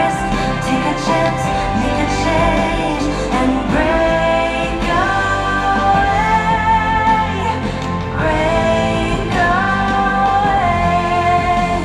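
Show music with a sung vocal line of long held, sliding notes over a steady instrumental backing, played over a theatre sound system.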